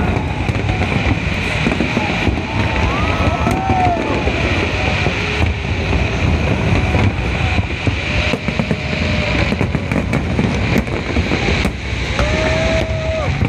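Aerial fireworks going off in a dense string of sharp bangs and crackles over a constant crowd din, with scattered shouts and whoops from the crowd.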